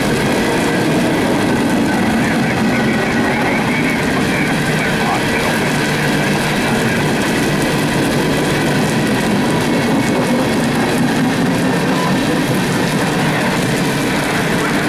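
Empty coal cars of a CSX freight train rolling past, a steady loud noise of steel wheels running on the rails.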